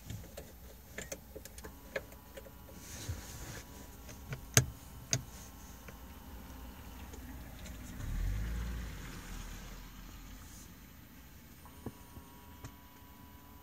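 Clicks and knocks of handling inside a stopped car, the loudest about four and a half seconds in, with a low rumble lasting a couple of seconds about eight seconds in.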